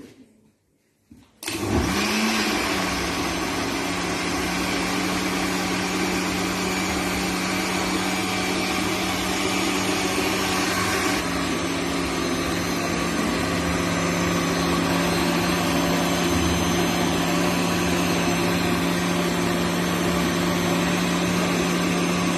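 Countertop blender with a glass jug starting up about a second and a half in and running steadily, puréeing a thick tomato, nut and garlic mixture. Its motor note steps slightly about halfway through.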